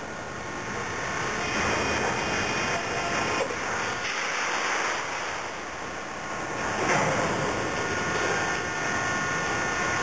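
Rotary railcar dumper unloading coal cars: a steady mechanical rumble and clatter with a faint high whine, swelling louder about seven seconds in.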